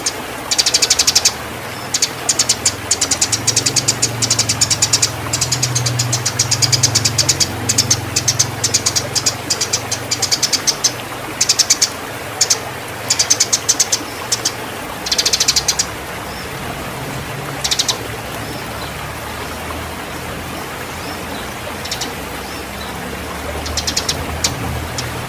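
Eurasian tree sparrows chirping in rapid, excited trains, the squabbling chatter of sparrows fighting in breeding condition. The chirping is dense for the first two-thirds, then comes in shorter, sparser bursts, over a steady low hum.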